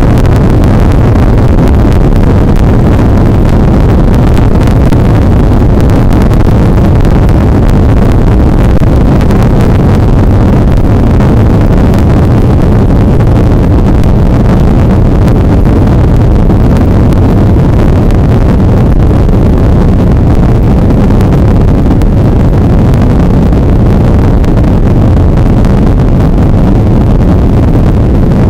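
Airbus A330 jet engines at takeoff power, heard from inside the cabin beside the wing during the takeoff roll: a loud, steady low rumble.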